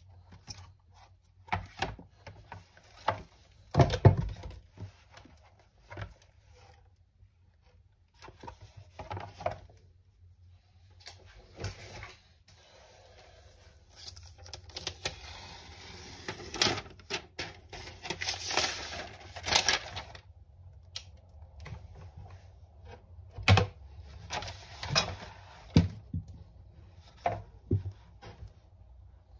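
Handling sounds of packaging: scattered taps and clicks of hands on a box and plastic, with a heavier thump about four seconds in. In the middle comes a stretch of crinkling plastic as the iPad Pro's protective wrap is handled.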